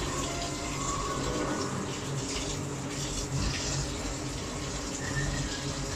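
Covered pot of chicken tinola broth bubbling on a gas burner: a steady, watery rushing sound.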